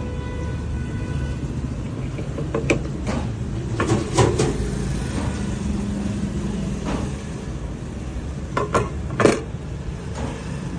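Hard knocks and clacks in two clusters about five seconds apart, over a steady low hum.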